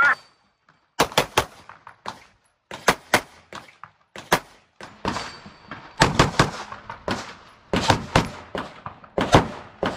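Glock 19 9mm pistol firing quick strings of shots, mostly two to four at a time, with short pauses between strings.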